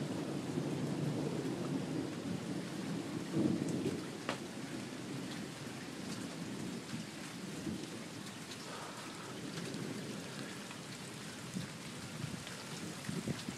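Thunder rumbling low over steady rainfall, loudest in the first few seconds and then fading, with one sharp tick about four seconds in.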